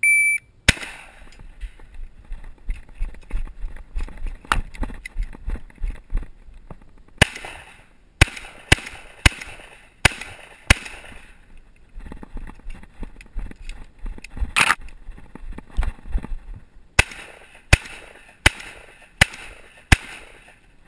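Electronic shot-timer beep, then shotgun shots: one just under a second later, a quick string of six about half a second apart, a single shot, and a final quick string of five, with faint clicks between strings.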